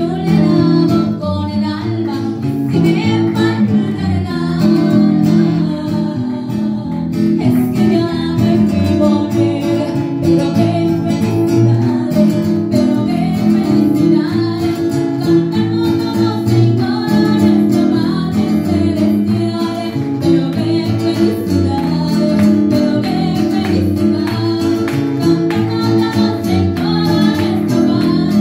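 A woman singing Christian choruses (coritos) in Spanish, accompanied by an acoustic guitar.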